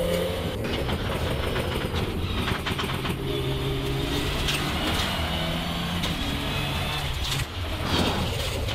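Mitsubishi Lancer Evolution IX's turbocharged four-cylinder engine heard from inside the cabin, running at steady revs over tyre and road noise, with occasional knocks. The revs hang at one pitch because the accelerator is sticking open, which the crew calls a fault that needs a return spring.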